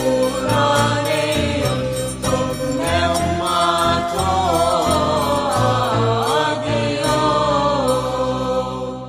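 Christian hymn: a sung melody with wavering held notes over steady instrumental accompaniment, beginning to fade out near the end.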